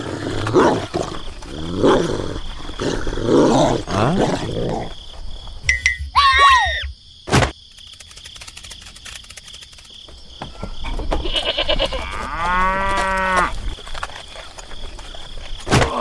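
A string of dubbed animal sound effects: several cattle-like lowing calls in the first few seconds, then separate pitched animal calls later on. There is a sharp click about halfway through and a sudden loud knock at the very end.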